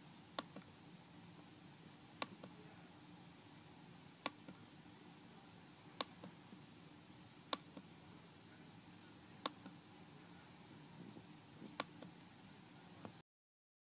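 Computer mouse clicking about every two seconds, each sharp click often followed by a softer one, over a faint steady hiss and hum.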